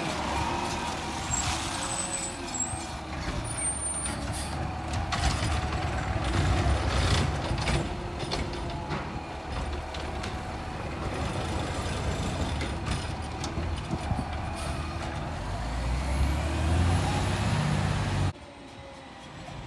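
Diesel engine of an Autocar ACX garbage truck with a McNeilus ZR side-loader body running as the truck drives off up the street, with short air-brake hisses.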